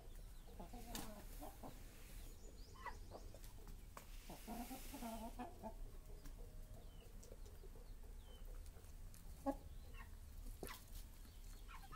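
Aseel chickens clucking in short, scattered calls, faint throughout, with a sharp click about nine and a half seconds in.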